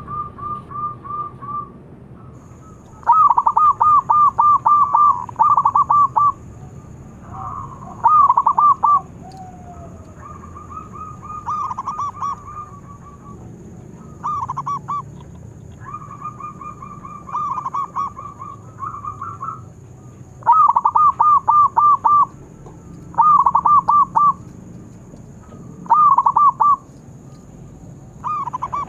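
Zebra doves (perkutut) cooing: about a dozen phrases of rapid staccato coos every couple of seconds, some loud and others fainter. A faint steady high-pitched whine runs underneath.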